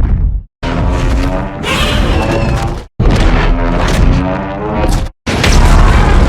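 Godzilla roar sound effects from Monarch: Legacy of Monsters, played as separate clips: a short fragment, then two wavering roars of about two seconds each, cut apart by brief silences. A third, louder clip with a heavy low rumble starts about five seconds in.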